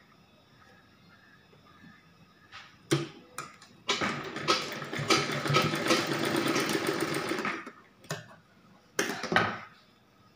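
Domestic sewing machine running for about four seconds, stitching through gathered cloth with a fast, even run of needle strokes. It is bracketed by a few short clicks and knocks as the cloth and machine are handled.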